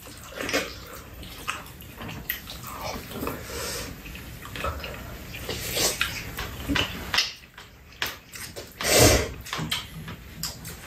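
Close-up eating noises: chewing and slurping, with chopsticks and spoons clicking against bowls and the pan. A louder, longer slurp-like noise comes about nine seconds in.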